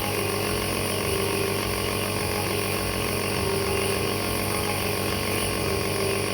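Electric nebuliser compressor running with a steady, even buzzing hum.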